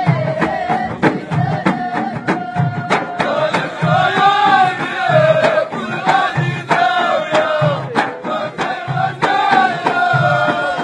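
Folk music in a Middle Eastern style: a steady low drum beat under sharp clicking percussion and a high, gliding melody line.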